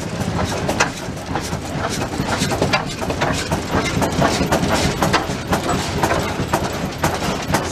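Large vintage stationary engines running, among them a Ruston with its heavy flywheels turning: an uneven clatter of sharp knocks over a low, steady hum.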